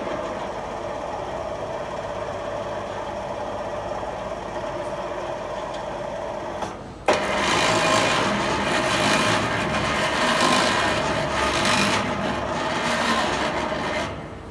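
Bulgarian-made 2-tonne ELMOT electric hoist running with an abnormal extraneous noise. It starts with a click and runs steadily for about seven seconds. After a brief stop and another click it runs louder for about seven seconds more, then stops near the end.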